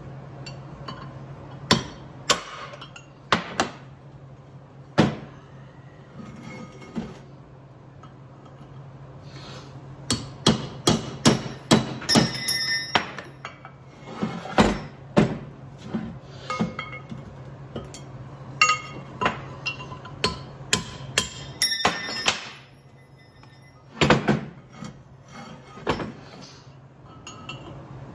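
Hammer driving a drift against a bearing race in the hub of a Dana 60 rear brake drum: sharp metal strikes at irregular spacing, some in quick runs, several leaving a short metallic ring. A steady low hum runs underneath.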